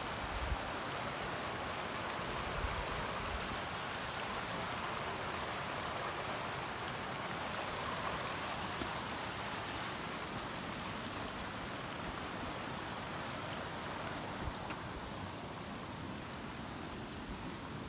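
Rushing water of a mountain creek's waterfall, a steady hiss that eases slightly near the end.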